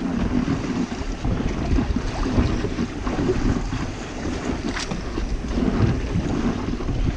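Wind buffeting an action camera's microphone on a boat at sea, with the wash of water underneath. There is a brief click about five seconds in.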